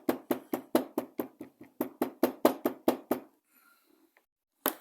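Rapid, even knocking, about five blows a second for some three seconds: the folded, water-soaked leather strap being pounded flat on the work surface. A single louder knock near the end.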